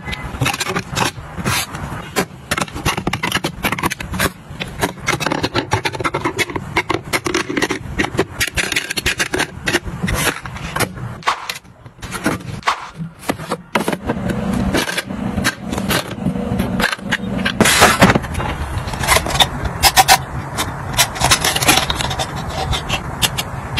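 Hands handling hard plastic organizer bins and the items going into them: a dense run of sharp clicks, taps and scrapes, with a short lull about halfway through.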